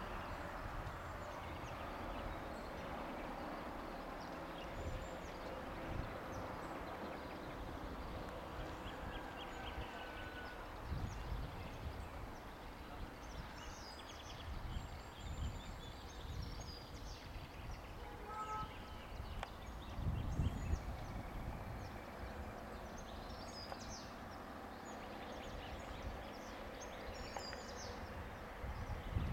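Outdoor ambience: small birds chirping, over irregular low rumbles that swell about twenty seconds in.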